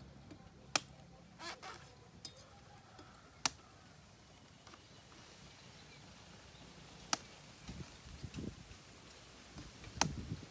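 Cleaver chopping into a young green coconut: several sharp strikes a few seconds apart, with dull low knocks near the end as the coconut is turned on its post.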